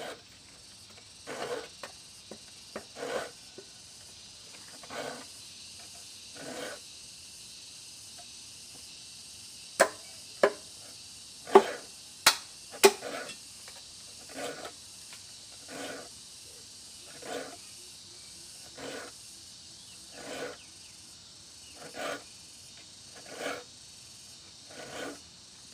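A small file rasping across the teeth of a dull hand saw, sharpening it tooth by tooth, with one short stroke about every second and a half. A few sharp metallic clicks stand out about ten to thirteen seconds in.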